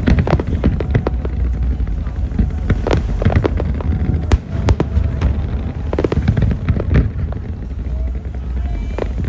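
Aerial fireworks bursting: an irregular string of sharp bangs and crackles over a constant low rumble.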